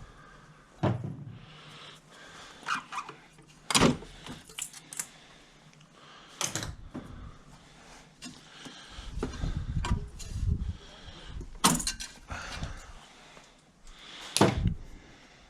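Parts being handled and pulled off in a car engine bay: scattered sharp knocks and clunks, about five loud ones, with smaller clicks and rattles between them and a low rumbling handling noise a little after the middle.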